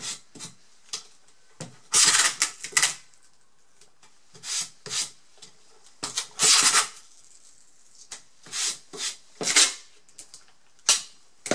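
Masking tape being pulled off its roll and pressed around the edges of a wooden canvas frame, in a series of short rasping pulls.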